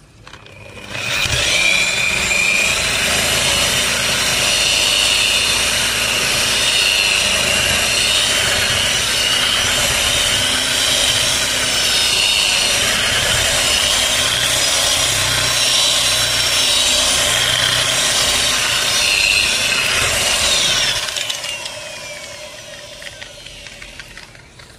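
Electric machine polisher with a wool pad buffing car glass to take out fine swirl scratches. A steady motor whine over the hiss of the pad rubbing the glass starts about a second in, then winds down and fades over the last few seconds.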